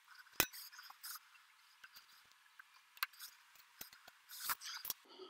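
Faint, scattered metallic clicks and light scrapes of snap ring pliers working the snap rings off the drive-chain sprockets of a DeWalt 735X thickness planer, with a quick cluster of clicks near the end.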